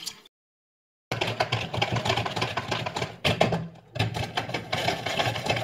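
Hand-cranked food mill turning: its metal blade scrapes and rattles against the perforated plate as it forces cooked vegetables through, a fast run of clicks and scraping. The sound drops out completely for under a second near the start.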